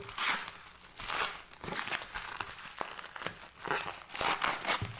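Bubble wrap and plastic packaging being handled and pulled open, crinkling and rustling in irregular bursts.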